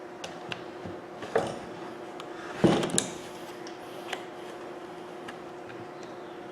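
Knocks and clicks of the Bosch 11255VSR rotary hammer's handle and housing parts being handled and fitted together by hand: a few light clicks, two louder knocks about two and a half and three seconds in, and another about four seconds in, over a steady low hum.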